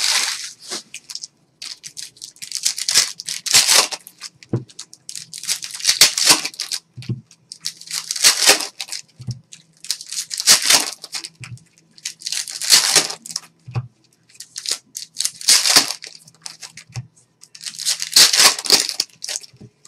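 Foil trading-card packs being torn open one after another: about eight loud rips, one every two to three seconds, with soft low knocks between them.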